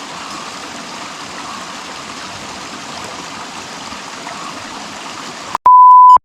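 Flowing water of a stream running steadily. Near the end it cuts off with a click, and a loud electronic beep at a single steady pitch sounds for about half a second, then stops abruptly.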